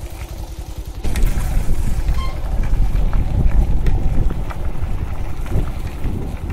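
Wind buffeting the microphone: a loud, low rumbling noise that comes in abruptly about a second in, with a vehicle's engine running beneath it.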